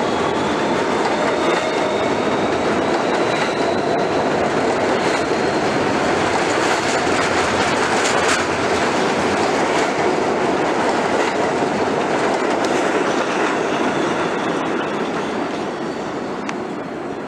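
R160 New York City subway train running past close by, wheels clattering on the rails with a faint rising motor whine at first as it picks up speed. There is a single sharp clank about eight seconds in, and the noise fades over the last few seconds as the train moves away.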